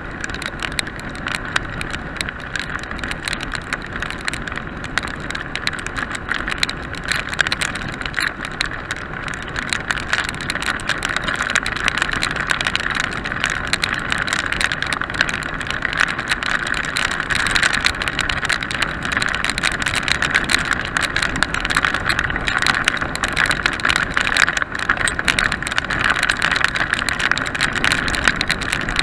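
Onboard sound of a 1998 BMW R850R motorcycle riding in the rain: steady wind rush and wet-road noise over its boxer-twin engine, growing a little louder about a third of the way in.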